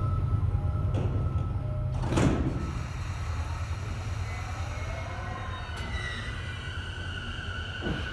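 JR East E233 series electric train standing at a station platform, its onboard equipment humming steadily, with a short sharp burst of noise about two seconds in; after it the hum drops and fainter high tones carry on.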